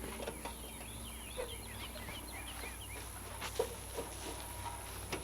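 Chickens calling: a quick run of short, high chirps through the first few seconds. A few faint knocks sound alongside.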